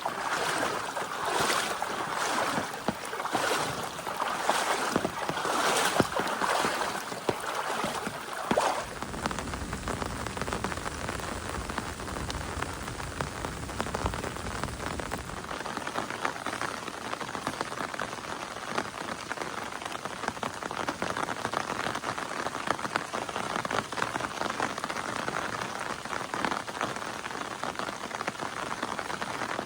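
Steady rain falling, with regular strokes about once a second through the first eight seconds or so, and a low rumble for several seconds near the middle.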